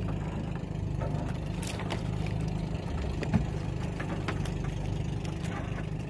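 A small outrigger-boat engine idling steadily, with a few faint knocks.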